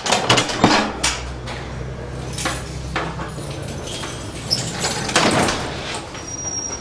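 A metal cell door's observation hatch slides open with clicks and clanks, then the heavy door is swung open about five seconds in with a louder knock and scrape. A thin high squeak follows near the end.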